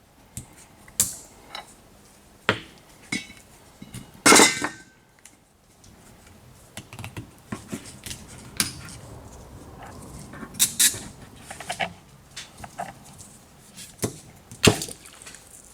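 Hand tools and small metal parts clinking and knocking irregularly while being handled during work on the engine, with a louder short clatter about four seconds in.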